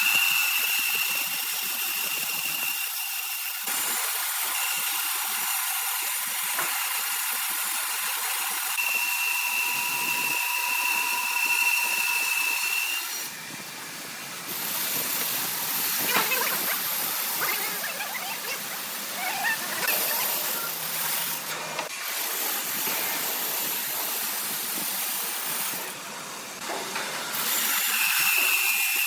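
Sawmill saw running through wood, a steady high whine that comes and goes, with rougher, clattering stretches in between.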